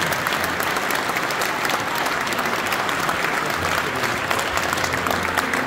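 Theatre audience applauding at the end of a song, a dense steady patter of many hands clapping.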